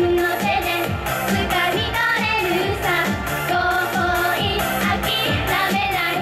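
Japanese idol pop song performed live: a girls' group singing into microphones over a pop backing track with a steady beat.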